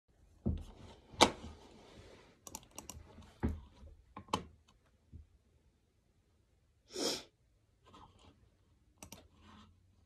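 Laptop keyboard and touchpad clicks, a handful of irregular sharp taps and knocks, the loudest about a second in. A short hiss comes about seven seconds in, and a few softer taps follow.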